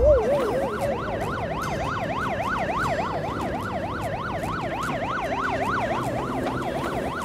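Police car siren in a fast yelp, its pitch sweeping up and down about three times a second. It begins with a short, narrow warble and widens into full sweeps about a second in.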